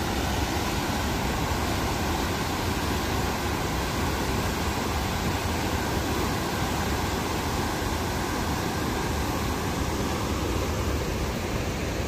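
Water pouring through the open sluice gates of a concrete dam and churning into whitewater below: a steady, unbroken rush.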